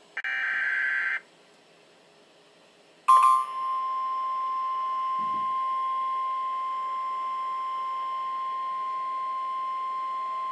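NOAA Weather Radio Emergency Alert System opening: a one-second burst of SAME digital header data, a buzzy warbling chirp, then about two seconds of quiet. About three seconds in, a click and the steady 1050 Hz warning alarm tone start and hold, the signal that a warning message is about to be read.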